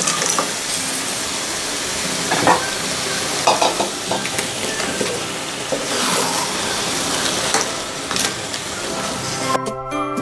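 Thick onion-tomato masala sizzling in an aluminium kadai as raw crabs are stirred into it, with a wooden spatula scraping and knocking against the pan every second or two. Jingly music comes in near the end.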